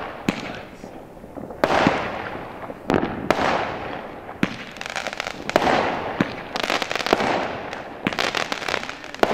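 Aerial fireworks going off: a string of sharp bangs about a second apart, each trailing off in a long echo, then a fast run of crackling pops near the end.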